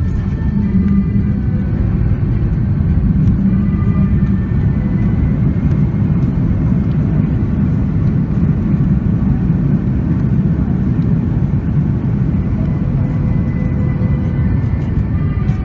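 Steady low rumble inside the cabin of an Airbus A330-300 airliner during its landing, with the engines and airflow heard through the fuselage.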